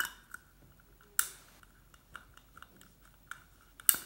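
A hand-held hole punch clicking and crunching through the thin metal top of a cat food can, with light metal taps as the punch is set for the next hole: three sharp clicks, at the start, about a second in and near the end.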